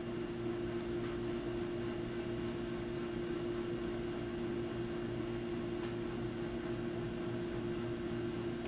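Steady low electrical hum with a faint hiss: room background noise, with a couple of faint clicks.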